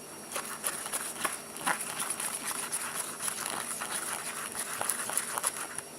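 A thick, sticky, half-formed slime mixture being stirred with a mixing tool in a bowl, making irregular wet squelches and clicks.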